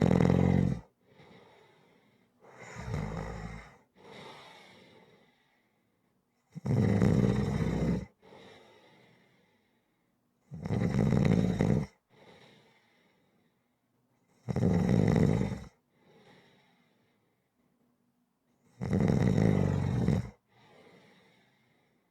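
Snoring in a steady rhythm: a loud, low, rattling snore about every four seconds, each followed by a softer, fading breath out. The snore a few seconds in is weaker than the rest.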